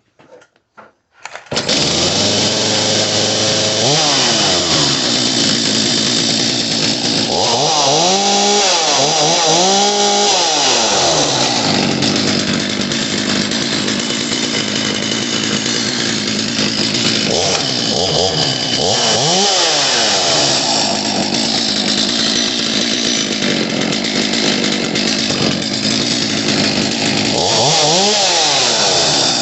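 Stihl MS250C two-stroke chainsaw catching suddenly about a second and a half in, then running at idle and revved up and back down about six times, the pitch rising and falling with each blip of the throttle.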